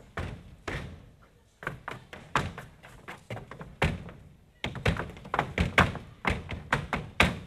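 Malambo zapateo: two dancers' boot heels and soles stamping and tapping on a stage floor. The sharp strikes come in fast, irregular flurries with short pauses between them.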